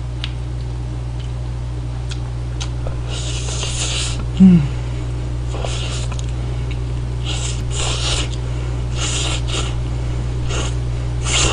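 A person slurping Buldak spicy stir-fried ramen noodles in repeated hissing bursts. About four and a half seconds in, a brief, loud low vocal sound that falls in pitch is the loudest thing heard. A steady low hum runs underneath.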